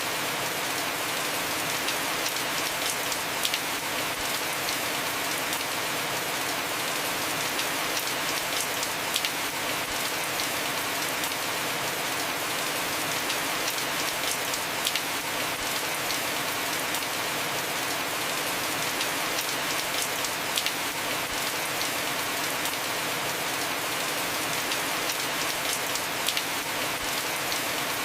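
Heavy rain falling steadily on a house roof: an even rushing hiss with scattered sharper drop hits.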